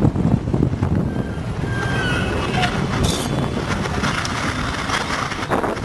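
Steady wind-like rushing noise with a low rumble, and a couple of faint short whistle-like glides about two to three seconds in.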